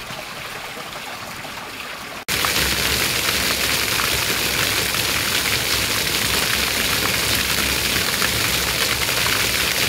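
A dome fountain's thin sheet of water trickling quietly, then, after a sudden cut a little over two seconds in, a row of vertical water jets splashing steadily and much louder onto stone paving.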